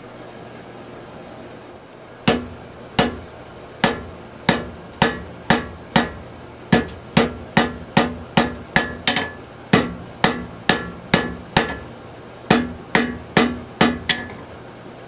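Hand hammer striking a hot folded horseshoe on an anvil to forge-weld it back on itself. About two dozen ringing blows start about two seconds in and come in a few quick runs of up to about three a second.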